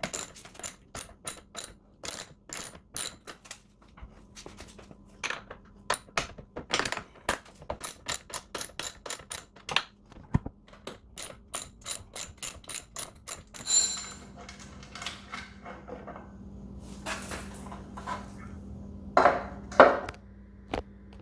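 Socket ratchet clicking in quick runs of about three to four clicks a second as 13 mm bolts are loosened. About two-thirds of the way through it gives way to softer handling and scraping, with a couple of louder knocks near the end.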